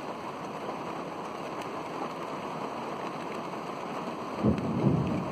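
Steady rain, then thunder from a nearby lightning strike breaking in suddenly about four seconds in as a low rolling rumble.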